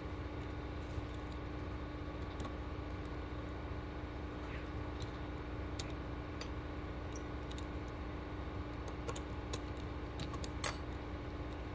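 Scattered small metallic clicks and taps as a copier bypass-tray roller assembly is handled and a C-clip is pried at on its shaft with a small flathead screwdriver, the sharpest click near the end. A steady low hum runs underneath.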